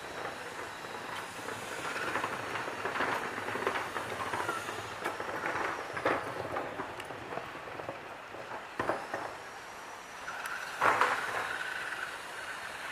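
CC201 diesel-electric locomotive running light and pulling away over station tracks: a steady rumble with a few sharp clanks of wheels on the rails, and a short high wheel squeal near the end.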